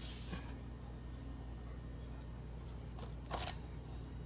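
Steady low hum with brief rustling handling noise, a faint one at the start and a louder one about three seconds in, as the bagged scrap copper on the scale is handled.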